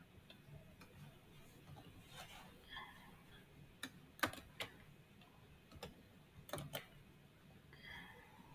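Faint, scattered clicks of a computer mouse and keyboard during copying and pasting, the loudest coming in pairs about four seconds in and again about six and a half seconds in.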